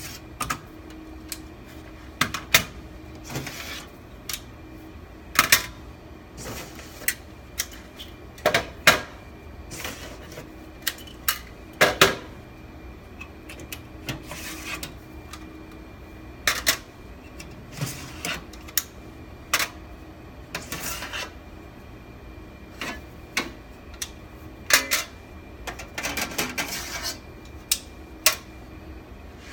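Irregular sharp metallic clicks and clatter of server hardware and cable connectors being handled and unplugged in a rack, some in quick runs, over a steady machine hum.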